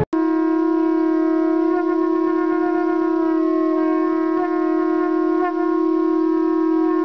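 Two conch shells (shankha) blown together in one long unbroken note, a steady drone with rich overtones that wavers slightly in the second half. It starts after a split-second gap and is held without a break for breath, in the manner of continuous 'akhanda' conch blowing.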